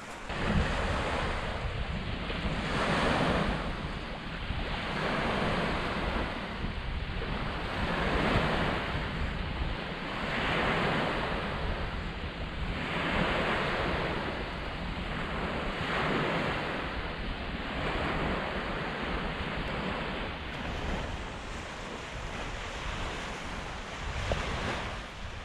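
Small sea waves breaking and washing up a sandy beach, the surf swelling every two to three seconds, with wind rumbling on the microphone.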